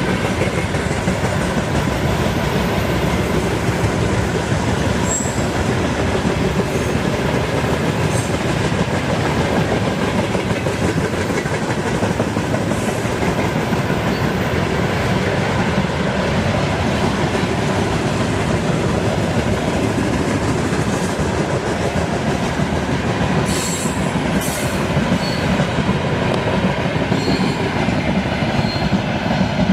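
Freight train wagons rolling past on the track: a steady, loud noise of steel wheels on the rails, with a few sharp clicks about three quarters of the way through.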